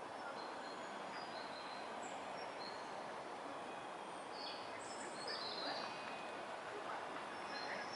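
Steady outdoor background noise with scattered short, high bird chirps, busiest about halfway through.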